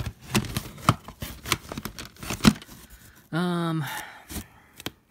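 Plastic CD jewel cases clicking and clacking against each other as they are handled and slid in and out of a packed shelf, the sharpest clacks about a second and two and a half seconds in. A short vocal sound a little after three seconds.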